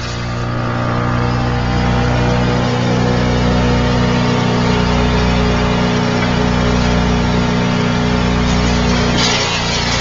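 Vermeer wood chipper running and chipping wood: a steady engine drone under a broad rushing, crackling noise, with a low pulse about every second and a half. A brighter burst of crackling comes about nine seconds in.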